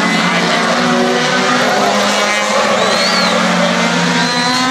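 Race car engine held at high revs, its pitch slowly climbing, with tyres squealing as the car slides: two short squeals, about three seconds in and again near the end.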